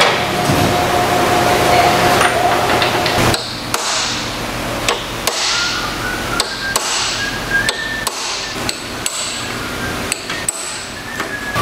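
Brass-headed hammer striking a hand-held steel tool driven into the cover seam of a large industrial electric motor, knocking the cover loose: a run of sharp metallic taps, about two a second, each with a short ring, starting about three seconds in. Before the first strikes, a steady machine hum.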